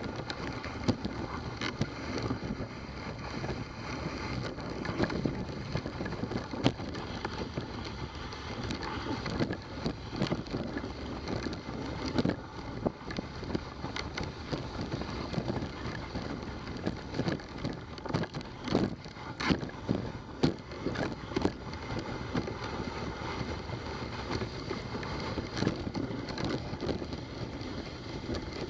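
Dog sled travelling along a snow trail behind its team: a steady hiss of the runners over the snow, broken by frequent irregular clicks and knocks.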